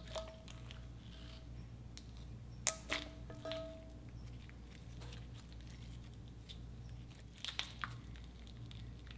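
Slime being pressed, folded and stretched by hand, giving sticky clicks and little pops: a cluster about three seconds in and another near the end.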